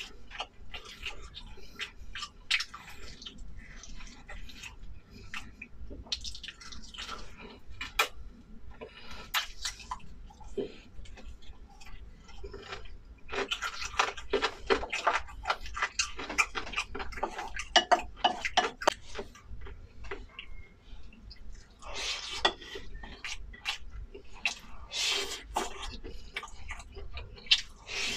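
A person eating close to the microphone: chewing with wet mouth clicks and smacks, in busier stretches midway and near the end.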